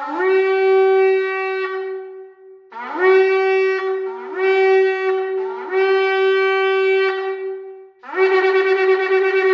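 Shofar being blown: a long blast, then three shorter blasts that each scoop up in pitch at the start, then a wavering, fluttering blast near the end.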